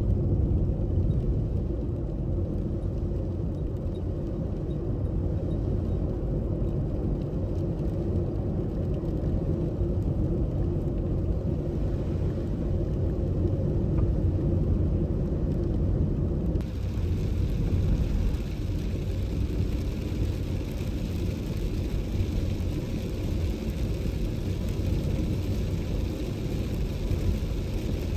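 A car being driven at road speed, a steady low rumble of road and driving noise. A steady hiss joins from a little past halfway.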